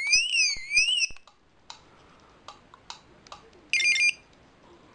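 Tomahawk 7.1 car alarm key fob sounding its alarm tone, a warbling beep sweeping up and down, after the shock/sound sensor has tripped the alarm; it cuts off about a second in. A few light clicks follow, then a short burst of chirps near the end.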